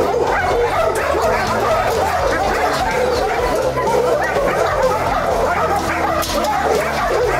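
Many dogs in shelter kennels barking at once, a continuous overlapping din of calls with no break.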